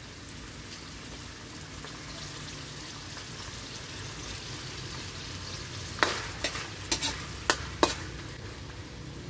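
Canned tuna with garlic, onion and tomato sizzling in a frying pan, a steady hiss. About six seconds in, a utensil knocks against the pan about six times in two seconds as the mix is stirred.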